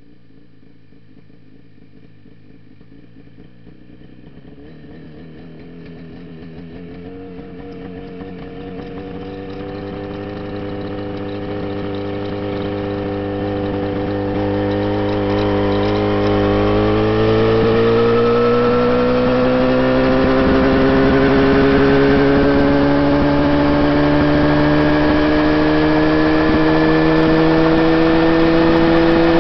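Mosquito ultralight helicopter's engine and rotor spinning up. The engine note rises steadily in pitch and grows much louder over about the first twenty seconds, then holds at a high, steady run with the pitch still creeping up.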